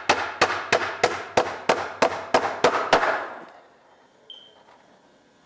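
Hammer driving a nail into the face of a pine board: about ten quick, even blows, roughly three a second, stopping about three seconds in.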